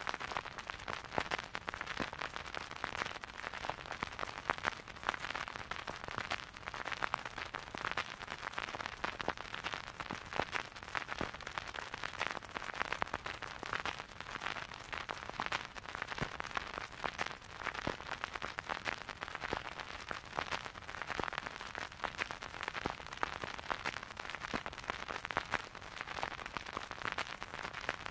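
Vinyl record surface noise: the stylus riding the groove with a steady hiss and dense crackle, broken by frequent louder pops, with no music playing.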